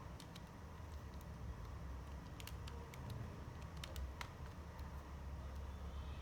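Scattered light clicks from handling a LEGO brick model, several close together near the middle, over a steady low hum.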